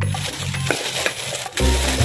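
Thin plastic bag rustling and crinkling as it is handled, with a dull low thump about a second and a half in.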